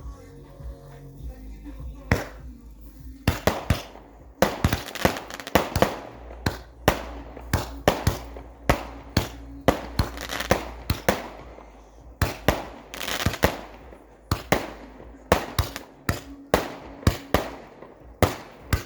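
Consumer firework cake (battery) firing a rapid series of shots: sharp bangs at two to four a second, each with a brief crackling tail. The shots begin about two seconds in and keep on nearly without pause to the end, over background music.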